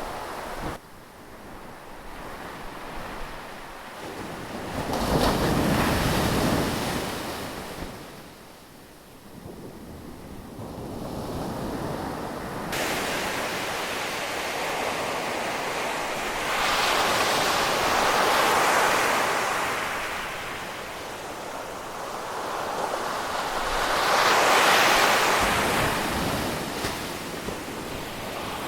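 Ocean surf: waves break and wash in, the rushing swelling up and falling back three times, with wind on the microphone.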